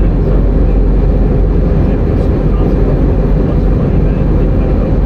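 Airbus A320-200 jet noise: a steady, even low rumble of engines and rushing air with no change in level.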